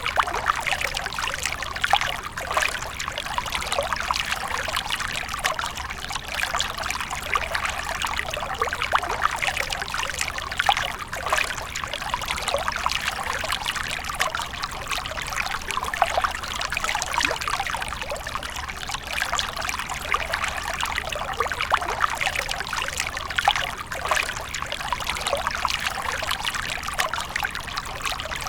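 Water fountain splashing and trickling steadily into its basin, a continuous patter of falling water.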